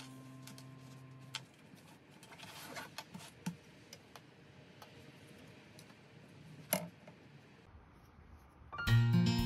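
Quiet handling of cotton fabric on a table: soft rustles as it is smoothed flat, a few small clicks, and one sharper tap about two-thirds of the way through. Sustained music notes fade out in the first second or so, and acoustic guitar music starts near the end.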